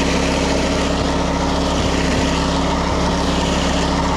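Small petrol engine of a wing mower running steadily at a constant speed.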